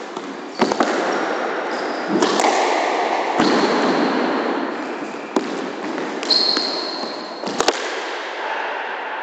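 A squash rally: the ball strikes rackets and the walls in a string of sharp knocks at uneven gaps, while sneakers squeak briefly on the wooden court floor and running footsteps scuff between shots.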